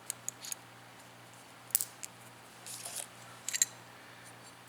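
Small metallic clicks and light scrapes from an AR-15 bolt carrier group being handled: a few quick clicks at first, one sharper click a couple of seconds in, and a cluster near the end, the loudest of them last.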